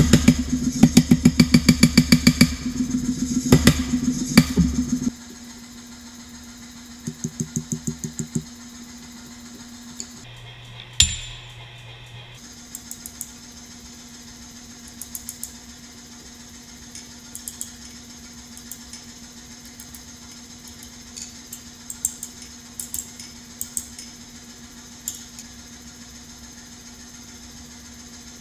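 Mechanical power hammer pounding hot steel with rapid blows, several a second, for about five seconds and then stopping. A steady low hum goes on after that, broken by a quick run of hand-hammer blows on the anvil and, later, scattered single taps.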